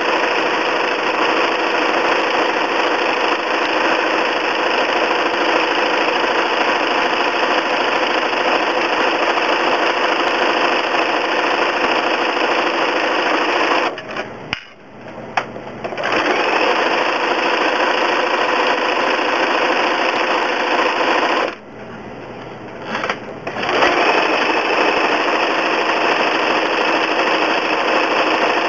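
Domestic sewing machine running steadily, free-motion straight stitching with a darning foot. It stops briefly twice, about halfway through and again about three quarters of the way in.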